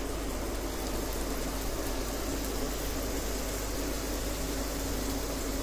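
Marinated paneer cubes frying in melted butter in a non-stick pan, a steady sizzle.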